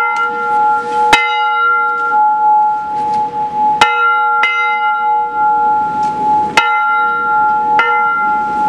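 A bell struck six times at uneven intervals, each stroke ringing on into the next so the tone never dies away, with rain and wind noise underneath.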